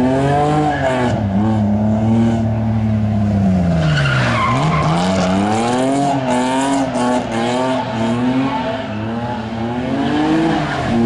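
A car's engine revving up and down again and again as it drifts through a tyre-marked course, with its tyres squealing as they slide, loudest in the middle of the stretch.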